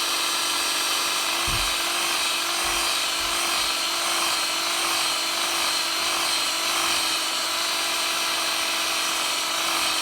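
Small electric drill running at a steady high speed with a constant whine, drilling out the base rivet of a Hot Wheels die-cast car to free the chassis for a wheel swap.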